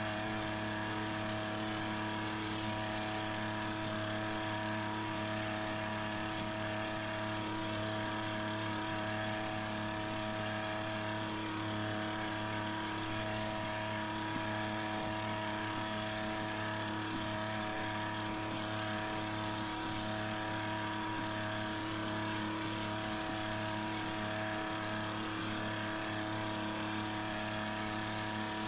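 Small engine of a motorized power sprayer running steadily at constant speed, with the hiss of the spray from the lance nozzle swelling every few seconds as the spray is swept across the corn rows.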